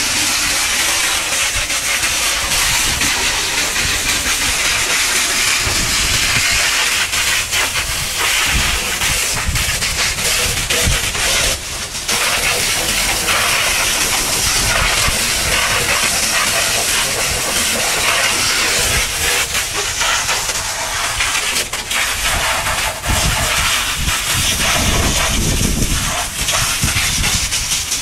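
High-pressure washer jet hissing steadily as it blasts dried mud off a truck's tyres and steel wheel rims, water splashing off the rubber.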